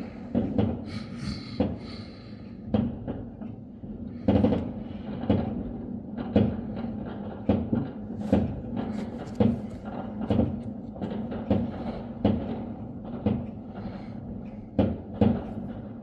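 Fireworks going off, a long irregular run of bangs and thuds about once a second over a low rumble.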